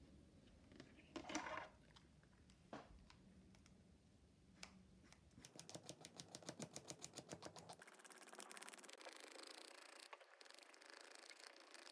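Faint rasping of fingerboard grip tape being scraped along the deck's edges with a small hand tool to trim the overhang, after a few light handling knocks. The scraping starts as quick strokes, about seven a second, and becomes a dense continuous rasp in the last few seconds.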